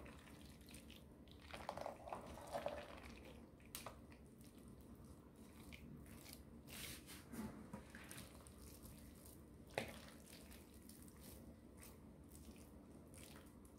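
Wooden spatula stirring and folding cooked macaroni with ground beef in a granite-coated nonstick pan: faint soft squishing and scraping, with a few light clicks from the spatula against the pan.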